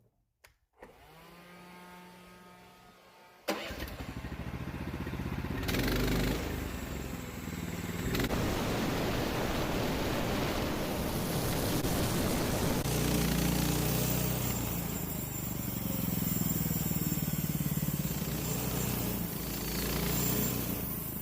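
An engine starts about three and a half seconds in, steps up in speed a couple of seconds later, then runs loud and steady.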